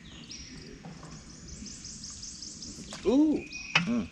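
A man's short, loud rising-and-falling 'ooh' about three seconds in, and a briefer one near the end. Before it, a faint rapid run of high chirps sounds in the background.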